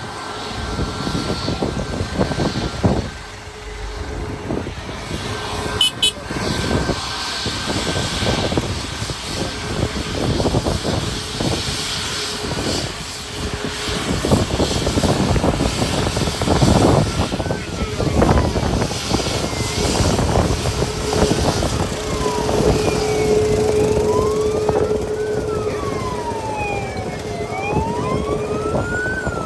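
An emergency vehicle siren wails over a steady noisy background. It starts a little past halfway, with slow rises and falls in pitch about every four seconds.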